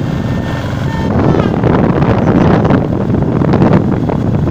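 Running noise of a moving vehicle on a paved road, with wind buffeting the microphone; a louder rushing swell starts about a second in and eases off near the end.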